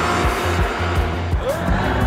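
Cartoon background music with a motor-vehicle sound effect mixed in; a short rising glide comes about one and a half seconds in.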